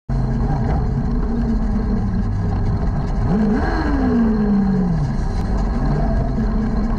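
Junior sprint car's engine, heard from its own cockpit, running at low speed. About three seconds in it revs sharply up once and then falls away over a second and a half.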